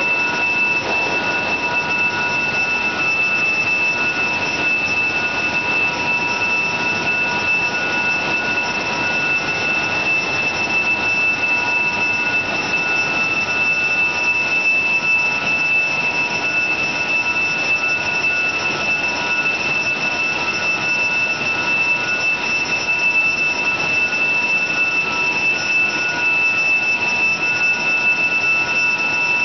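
Fourdrinier paper machine making liner board, running: a steady mechanical noise with a constant high-pitched whine and fainter lower tones over it.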